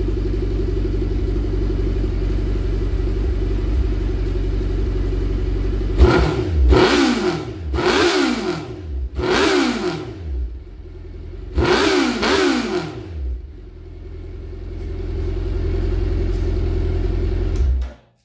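Suzuki Hayabusa inline-four idling through its baffle-deleted stock mufflers, then blipped several times with quick revs that fall back to idle. It settles back into a steady idle and cuts off suddenly near the end.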